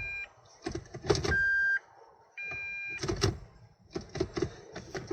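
Electronic warning beeps from a Toyota Verso's MMT semi-automatic gearbox system: a couple of short tones and one longer, louder beep about a second and a half in. Between them are bursts of clicking and whirring as the gear lever is worked through reverse and plus/minus with the ignition on, while the mechanic tries to provoke a fault code.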